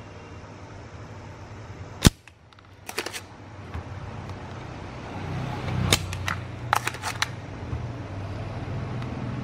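Spring-loaded desoldering pump (solder sucker) snapping as it is fired to suck solder off potentiometer pins: one sharp, loud crack about two seconds in, a few lighter clicks a second later, and another cluster of clicks around six to seven seconds in as the pump is worked again. A low hum sits underneath in the second half.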